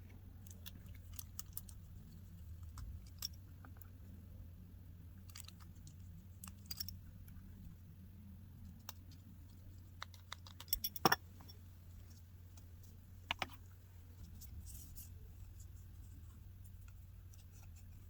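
Small repair tools clicking and tapping against the parts of an iPhone 8 being reassembled, in scattered light clicks with a brief cluster of sharper taps about ten to eleven seconds in, over a steady low hum.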